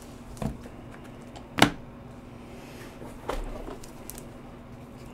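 Trading cards being handled with gloved hands: a few short taps and clicks, the sharpest about a second and a half in, over a faint steady hum.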